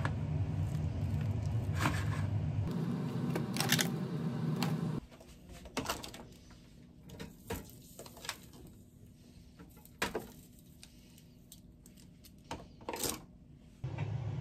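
Kitchen handling sounds. Light clicks and taps sit over a steady low hum at first. After the background drops away about five seconds in, a few scattered knocks and clatters come as an air fryer basket is handled.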